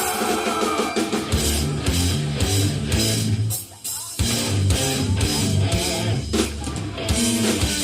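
A live heavy metal band starting a song: distorted electric guitars and a drum kit playing a fast riff, with a brief stop about three and a half seconds in before the band comes back in.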